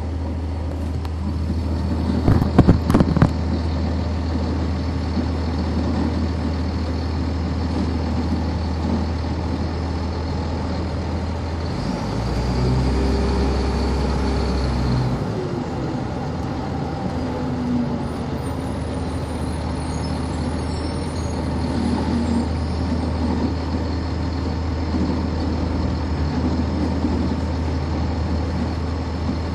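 On-board sound of a 1999 NovaBus RTS transit bus with its Cummins ISC straight-six diesel engine running steadily. Several sharp knocks come about two to three seconds in. From about twelve to fifteen seconds the engine hum drops lower and grows louder, then settles back.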